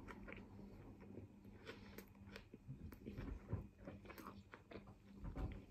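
Faint chewing of a mouthful of chicken shawarma wrap: soft, irregular mouth clicks.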